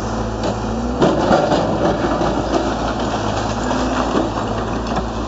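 Tracked excavator's diesel engine running as it digs into brickwork, with knocks and clattering of rubble, loudest a little after a second in.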